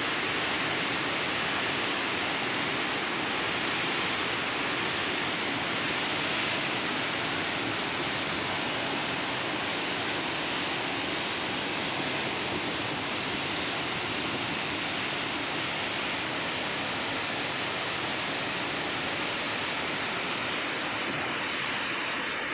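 Floodwater pouring from a dam's open spillway gates and churning in the river below: a steady, unbroken rush of water.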